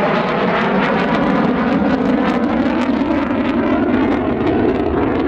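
Aircraft engine noise, loud and steady, from a display aircraft flying overhead.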